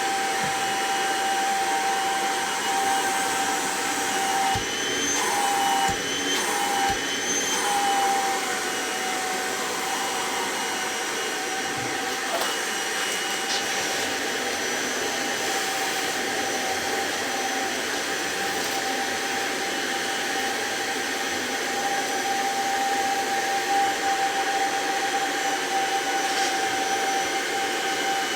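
Kirby G4 Tech Drive upright vacuum cleaner running steadily, with a high motor whine over the rush of air. Between about five and eight seconds in there are a few knocks, and the pitch briefly wavers.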